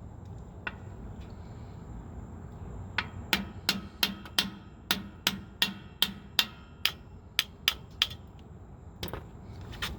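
Hammer blows on the back of a stuck F-150 rear drum-brake wheel cylinder to knock it loose from the backing plate: a single knock about a second in, then a quick run of about fifteen sharp strikes at roughly three a second, and two more near the end.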